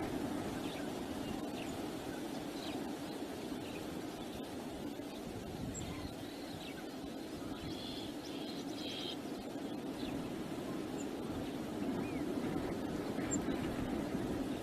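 Wind rumbling steadily on the microphone, with short high bird calls now and then and a brief burst of them about eight seconds in.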